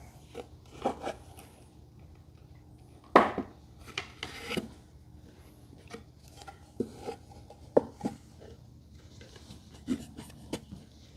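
Scattered knocks, clicks and rubbing of flat-pack shelf pieces being handled and fitted together, the loudest knock about three seconds in.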